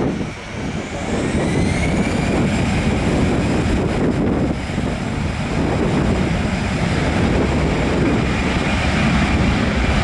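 Airbus A320-214's twin CFM56 turbofans spooling up, a whine rising in pitch over the first two seconds and then holding steady over a deep rumble, as the airliner sets off on its take-off roll.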